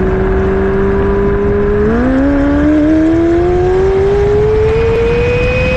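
McLaren 720S twin-turbo V8 exhaust, holding a steady note, then about two seconds in the pitch steps up and climbs smoothly as the car accelerates.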